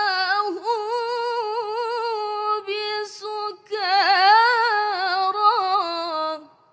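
Young woman's voice reciting the Quran in the melodic mujawwad tilawah style, holding long, ornamented notes that waver in pitch. There is a short break for breath about three and a half seconds in, and the voice stops just before the end.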